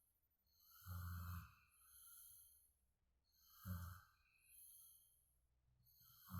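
A sleeping person snoring: three low buzzing snores about two and a half to three seconds apart, the last right at the end, each followed by a softer breath.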